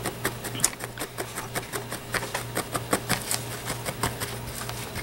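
A felting needle stabbing repeatedly through wool roving into a styrofoam foam block, several quick, sharp punches a second, over a steady low hum.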